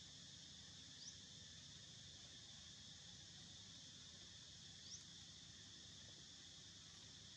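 Faint, steady high-pitched drone of insects in the surrounding forest, with two short rising chirps, one about a second in and one about five seconds in.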